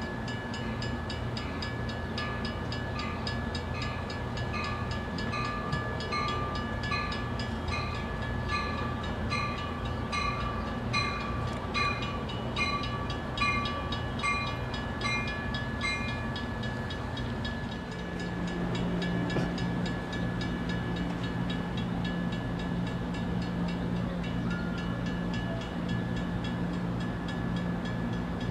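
Amtrak Surfliner passenger train standing at a station platform with its engine running in a steady low rumble. A railroad bell rings at about one and a half strokes a second and stops around sixteen seconds in. Later a steady low hum sits under the rumble.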